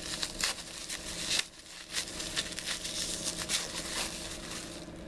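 Rustling and crinkling of handled packaging: a run of short, dry crackles that stops near the end.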